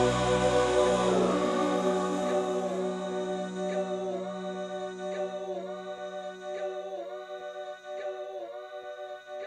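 Music: layered voices holding sustained chords and slowly fading out, with a short dip in pitch recurring about once a second in the second half.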